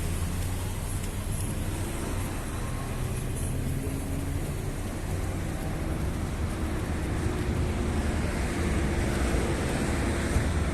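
Street traffic: motor vehicle engines running and passing, a steady low rumble with engine tones that rise and fall.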